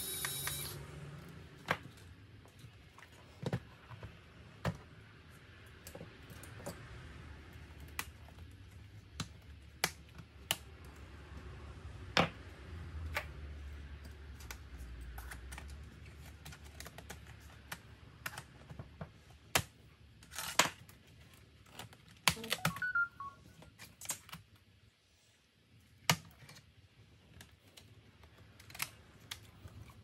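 Scattered sharp clicks and light knocks of hands and small tools working on an HP ProBook 430 G4 laptop, including the keyboard being pried up out of the top case.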